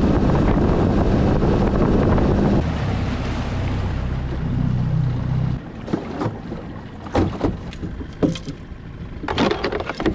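Small boat outboard motor running at speed with wind on the microphone; the engine note drops a couple of seconds in and the motor stops about halfway through. After it, a series of sharp knocks and clatters.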